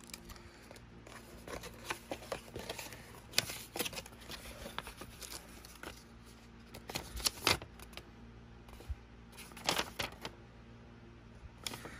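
A thin plastic bag and a folded paper instruction leaflet being handled and unfolded by hand: scattered rustles, crinkles and light taps with quiet gaps between.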